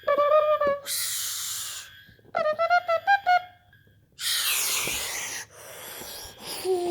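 A child making mouth sound effects for toy spaceships flying off: short hummed notes and a choppy run of rising tones, twice broken by a long hissing whoosh, with a falling pitched tone near the end.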